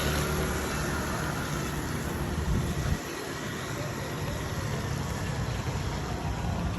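Street traffic on wet roads: a steady hiss with engine rumble underneath, the rumble easing about three seconds in.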